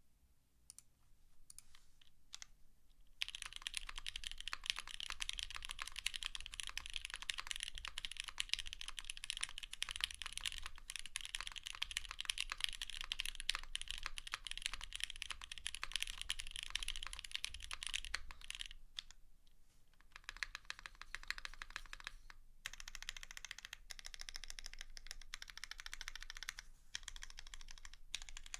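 Monokei Kei custom mechanical keyboard with lubed and filmed Gateron Black Ink linear switches, GMK keycaps and a polycarbonate half plate, typed on in a fast continuous stream of keystrokes. A few scattered presses at first, then rapid typing from about three seconds in, with a short lull a little past the middle and a brief stop a few seconds later.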